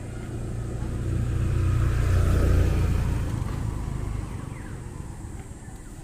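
A motor vehicle passing close by: its engine and tyre noise swell to a peak about two and a half seconds in, then fade away.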